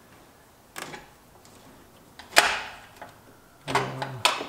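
Knocks from hands and tools working the EBCM module loose in a Corvette engine bay: a light knock about a second in, then one much louder, sharp knock about two and a half seconds in. A short low grunt and a click follow near the end.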